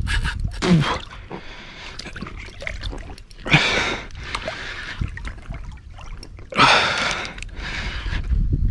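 Heavy breathing from an angler straining against a large hooked wels catfish: three long, heavy breaths about three seconds apart.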